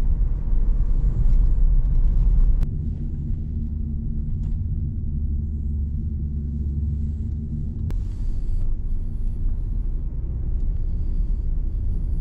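Steady low rumble of road and engine noise inside a moving car's cabin. It drops a little in level about two and a half seconds in, with a faint click or two.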